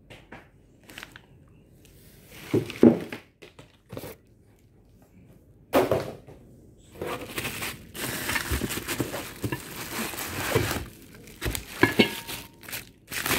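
Plastic wrapping and bubble wrap crinkling and rustling as wrapped parts are handled and pulled out of a cardboard box, in fits and starts, with a few sharper handling knocks. The crinkling is busiest in the second half.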